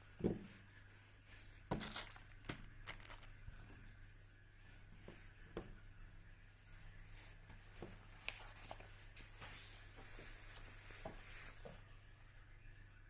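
Faint handling noises: scattered sharp clicks and knocks with light rustling, the strongest near the start and about eight seconds in, over a steady low hum.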